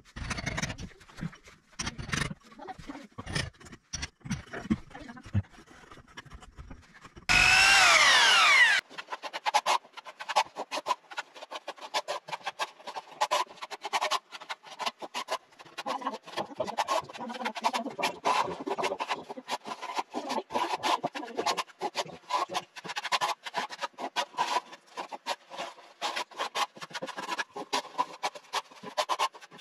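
Hand and power-tool work on aerated concrete while fitting flush-mount electrical boxes. Irregular knocking and scraping, then a power drill spinning up with a loud rising whine about seven seconds in, followed by a long stretch of rapid rasping strokes.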